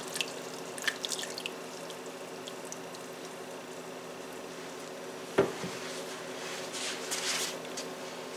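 Thick, wet chicken-and-creamy-soup mixture dripping and sliding from a glass baking dish into a skillet, with a few small clicks, one sharp knock about five seconds in and a short hiss near the end, over a steady low hum.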